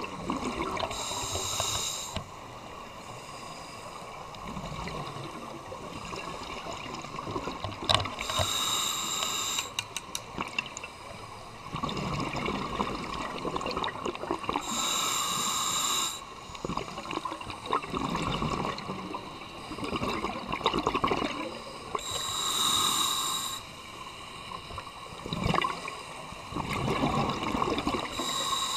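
Scuba diver breathing through a regulator close to the camera: a short hiss on each inhale through the demand valve, then a gurgling rush of exhaled bubbles, in slow breaths about every six to seven seconds.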